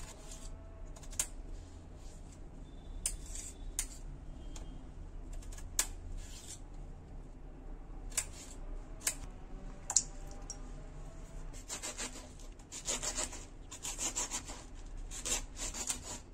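Small kitchen knife cutting potatoes on a granite countertop, the blade clicking against the stone every second or so. About twelve seconds in it gives way to a fast run of crisp strokes as cabbage is shredded.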